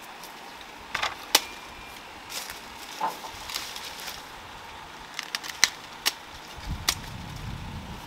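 Scattered sharp clicks and snaps, about a dozen, irregularly spaced, with a low rumble coming in near the end.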